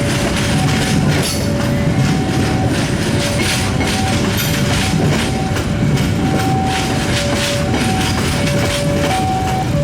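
A long train passing close by, its wheels rumbling and clattering over the rail joints. Over it, a two-tone electronic warning alarm alternates high and low, each tone lasting well under a second.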